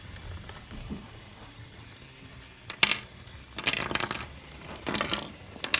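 Hard plastic LEGO minifigures clattering as a spinning fidget spinner knocks them over. A single sharp click comes about three seconds in, then several quick bursts of small plastic clicks and rattles.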